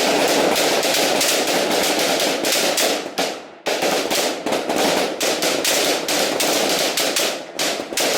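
A firing line of many rifles shooting at once, the shots overlapping into a dense, continuous volley. There is a brief lull about three and a half seconds in, and the firing thins to a few separate shots near the end.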